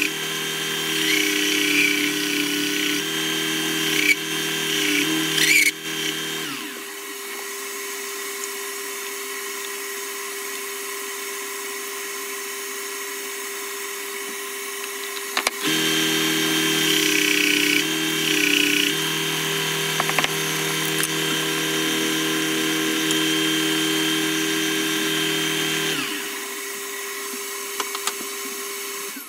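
Clarke Woodworker combination belt and disc sander running steadily, with wood being ground against the sanding belt in two spells: about the first six seconds, and again from about halfway to near the end. The motor cuts out at the very end.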